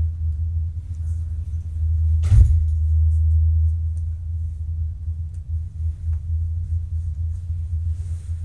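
Steady low hum throughout, with a sharp click about two and a half seconds in and a few faint taps as a USB Type-C wireless-mic receiver is handled and fitted into a smartphone's port.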